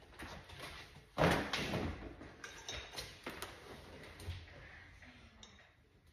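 Knocks and clatter from things being handled: a loud scraping thump about a second in, then scattered light clicks and knocks that die away.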